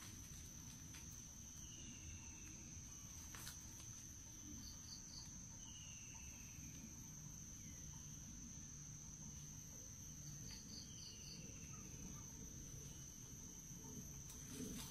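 Faint steady high-pitched drone of forest insects, cricket-like. A few short, faint falling bird whistles recur every four to five seconds, and a quick triplet of high chirps comes twice.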